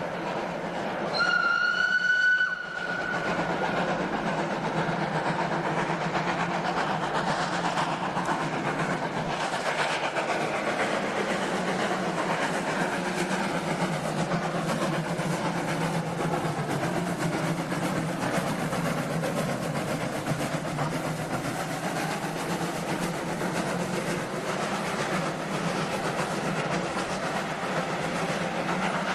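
Steam locomotive whistle blowing once for about a second and a half, followed by the steady running noise of the steam train.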